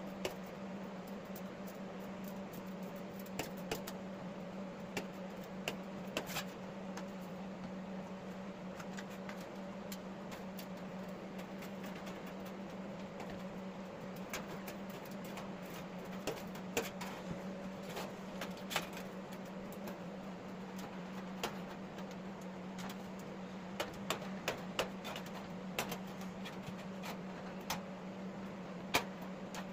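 Hand snips cutting a thin sheet, giving short, irregular clicks as the blades close, over a steady low hum.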